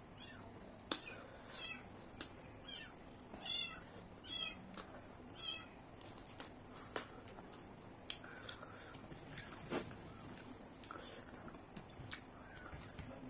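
Wet eating sounds, lip smacks and finger sucking, as rice and chicken are eaten by hand, heard as scattered sharp clicks. Five short, wavering high-pitched calls come one after another between about two and six seconds in.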